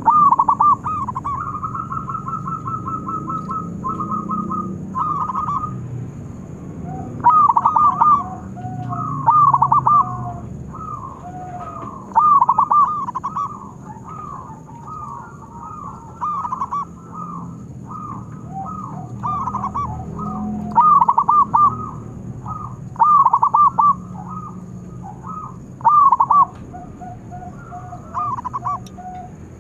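Zebra dove cooing in repeated phrases. A fast run of short, even notes comes in the first few seconds, then louder groups of quick drooping coos at irregular intervals, with a softer, lower series of notes beneath some of them.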